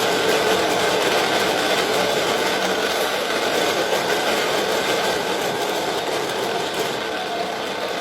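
Washing machine running, a steady mechanical noise with a faint hum in it, easing slightly toward the end.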